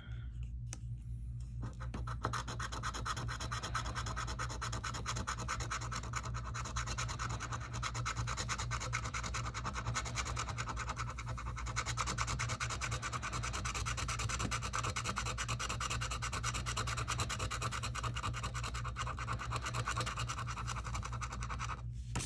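A coin scratching the coating off a scratch-off lottery ticket: quick rasping strokes that start about two seconds in and go on almost without a break.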